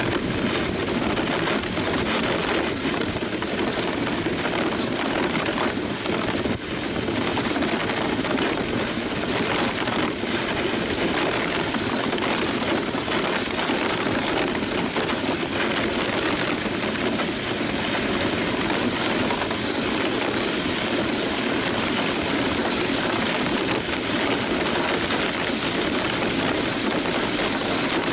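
DN iceboat under sail at speed: a steady, loud rush and rumble of its steel runners skating over the ice, mixed with wind on the boat-mounted camera, with a constant fine crackle running through it.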